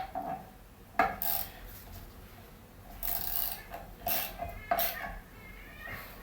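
Hand tools and metal parts clinking and scraping: a sharp clink about a second in, then several short scraping strokes.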